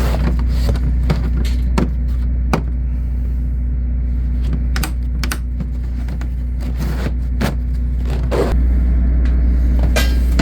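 A steady low rumble, louder from about eight and a half seconds in, under scattered sharp clicks and knocks of tools being handled in a tool-set drawer.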